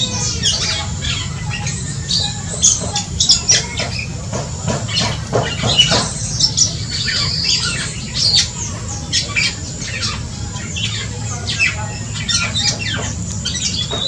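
Black-and-crimson oriole (kepodang dada merah) calling: many short squawks and chirps in quick, overlapping succession, over a steady low background hum.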